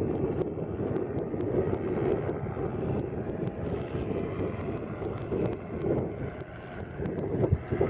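Home-built hovercraft's engine and fan droning steadily as it runs across open water, with wind buffeting the microphone.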